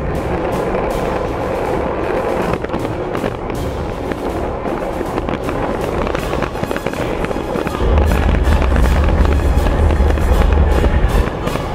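Background music over the crackling, rumbling noise of wind buffeting a bike-mounted camera's microphone at riding speed. The low rumble swells for a few seconds about eight seconds in.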